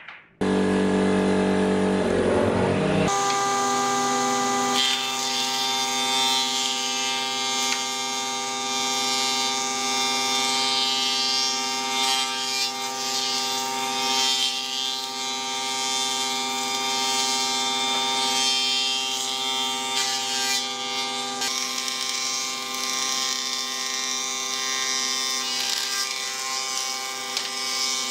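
Combination jointer-thickness planer running, its cutterhead planing recycled pallet boards: a steady machine hum with a hiss of cutting wood over it. A shorter, lower machine tone fills the first few seconds.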